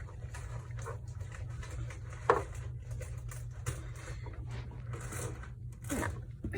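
Soft rustling and handling noises with small clicks and a sharper knock about two seconds in, over a steady low hum.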